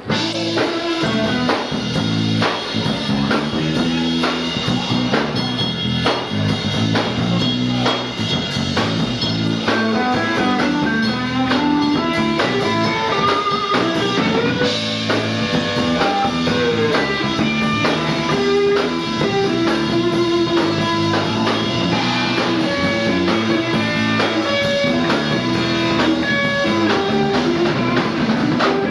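Live rock band playing at full volume: a guitar picks out melodic lines over bass and a drum kit.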